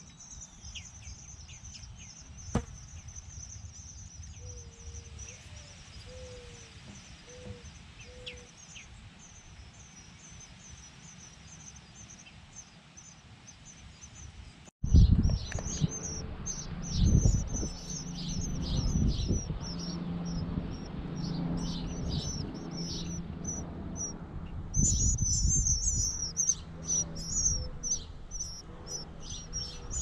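Nestling birds begging inside a birdhouse, a continuous run of rapid high chirps. About halfway through the chirps suddenly get much louder and closer, joined by low rumbling and bumps from the camera being handled against the birdhouse.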